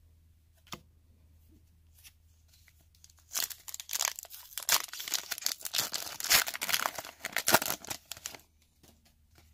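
Foil wrapper of an O-Pee-Chee Coast to Coast hockey card pack being torn open and crinkled by hand. The crackling starts about three seconds in and lasts about five seconds.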